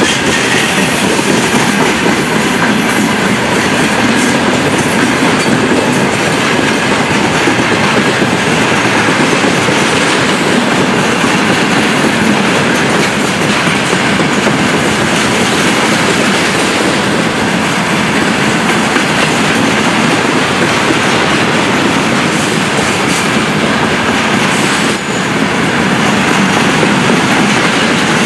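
Freight train of gondola wagons and tank cars passing close by: a steady, loud noise of steel wheels running on the rails.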